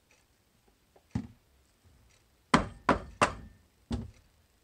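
Wooden soap loaf mold with a silicone liner, full of thick soap batter, banged down on the work table: a single knock about a second in, then four heavy thunks in quick succession. The banging settles the thick batter layers and knocks out air pockets.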